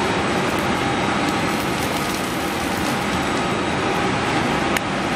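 Steady machine noise of a semi-automatic L-sealer and shrink tunnel running, with one sharp click near the end.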